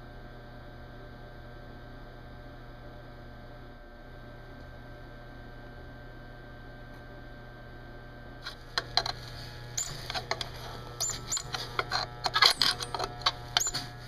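Kenmore garbage disposal motor humming steadily while being run to burn it out. Irregular sharp metallic clinks and rattles start a little past halfway and grow busier towards the end.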